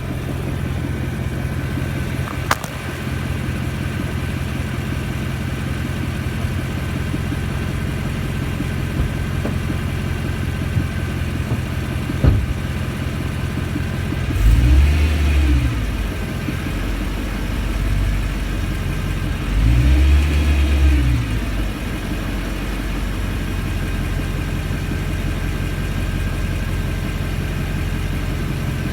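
Car engine idling steadily, revved briefly twice about halfway through, the pitch rising and falling back each time; the owner reports a thumping noise that comes with the revs. A couple of sharp clicks are heard over the idle.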